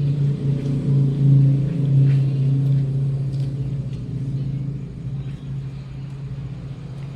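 A low, steady engine-like rumble, loudest in the first few seconds and easing off toward the end, with a few faint clicks over it.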